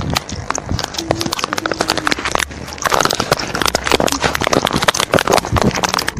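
Rapid, irregular clicking and knocking, many sharp clicks a second, with two brief faint hums about one and two seconds in.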